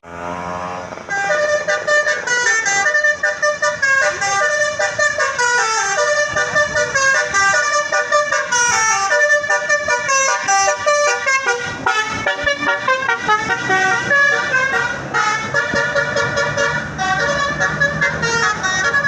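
Indonesian 'telolet' multi-tone bus horn playing a fast tune of short stepped notes, several horn tones sounding together. It follows a brief rising whine at the very start.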